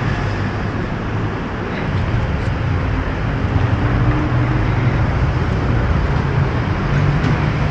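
City street traffic: a steady rumble of engines and tyres with a low engine drone.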